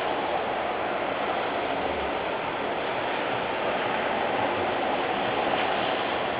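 Steady hiss of heavy rain falling on a wet road, even and unchanging.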